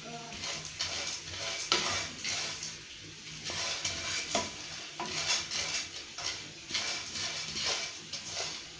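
Sunflower seeds being stirred as they roast in a pan: a utensil scraping and knocking irregularly against the pan, with sizzling underneath. The seeds are starting to turn golden brown.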